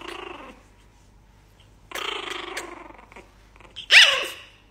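Small white puppy growling in two short bouts, then giving one high yelp that falls in pitch about four seconds in.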